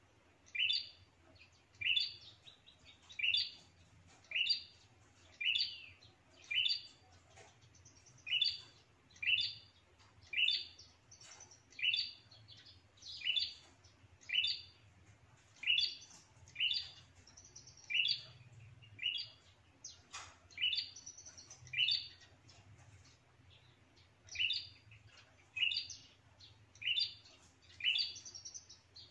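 Prenjak chirping over and over, a short, sharp, high call about once a second, kept up with only a brief pause. This is the prenjak lure call (suara pikat) used to draw wild prenjak in to defend their territory.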